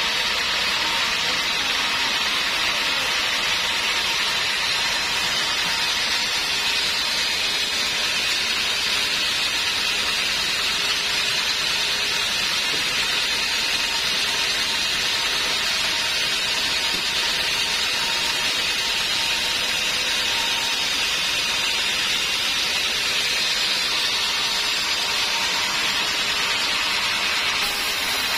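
Sawmill band saw ripping a teak log lengthwise on its carriage: a steady hiss of the blade through the wood with a constant high whine.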